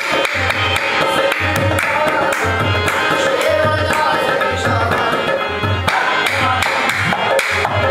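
Qawwali: voices singing to a harmonium, with rhythmic hand clapping and a low thudding beat about twice a second.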